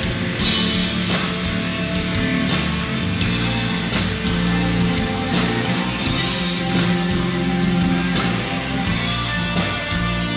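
Rock band playing live, with electric guitar.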